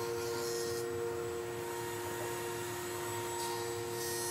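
Steady hum of a running shop machine, holding several even tones, with a few stretches of added hiss.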